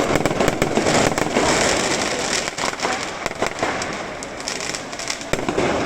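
Fireworks display: rapid crackling with many sharp bangs, densest and loudest in the first couple of seconds.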